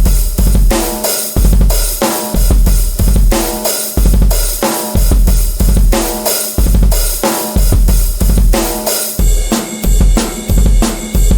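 Drum kit playing a steady beat, with heavy bass drum hits, snare and cymbals, alongside pitched tones. The pattern changes about nine seconds in.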